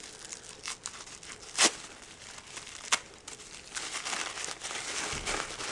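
Tissue paper crinkling and rustling as it is unwrapped from a bath bomb by hand, with two sharp crackles about one and a half and three seconds in, then denser rustling near the end.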